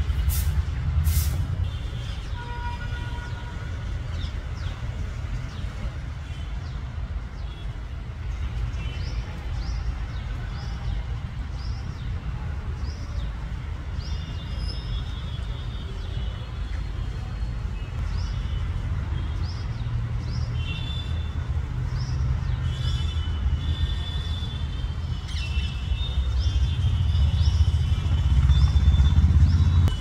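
Steady low rumble of road traffic, swelling near the end, with short high bird chirps repeating about once a second from about a third of the way in. Two sharp clicks at the very start.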